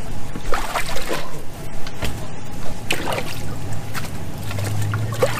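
Water splashing and trickling in a tub of water as bass are handled in it for weighing. A steady low hum comes in near the end.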